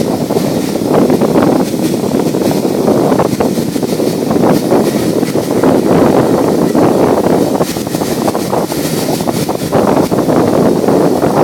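Wind buffeting the phone's microphone in a loud, uneven rumble over the running engine of an Indian Railways diesel locomotive close by.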